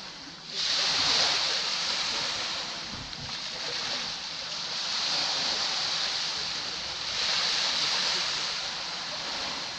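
Small sea waves breaking and washing up a sandy beach, a rushing hiss that swells and ebbs three times, the first wave breaking sharply about half a second in.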